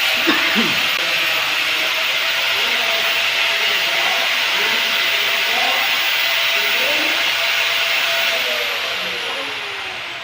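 Handheld electric power tool working stainless steel, running steadily with a harsh grinding noise. About eight and a half seconds in it is switched off, and its whine falls in pitch as it spins down.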